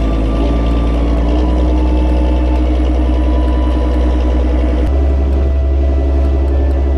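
Fishing boat's engine running steadily under way, a loud low drone mixed with the rush of water along the hull. The drone shifts slightly about five seconds in.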